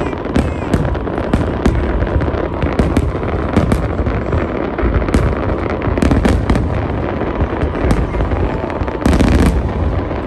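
Fireworks display: aerial shells bursting in quick succession, many sharp cracks and bangs over a continuous low rumble. A denser, louder cluster of bursts comes about nine seconds in.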